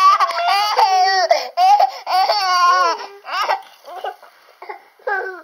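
A baby's loud, high-pitched squealing vocalisations with a wavering pitch: several long drawn-out ones, then shorter, quieter ones after about three and a half seconds.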